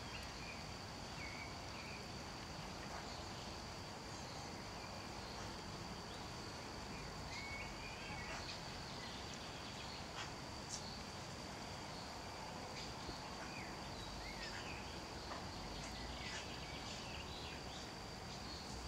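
Quiet garden ambience: a steady thin high-pitched tone, with scattered faint distant bird chirps and a few soft clicks.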